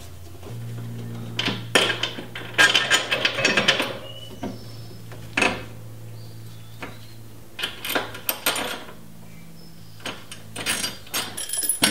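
A jack being worked to raise a fuel tank under a vehicle: bursts of metallic clanking and ratchet-like clicking, with a steady low hum underneath.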